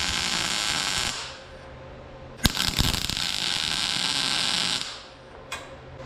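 MIG welder laying tack welds with argon/CO2 shielding gas: a steady arc crackle and hiss that stops about a second in, then a second tack that starts with a sharp crack at about two and a half seconds and runs to nearly five seconds. A low steady hum sits underneath.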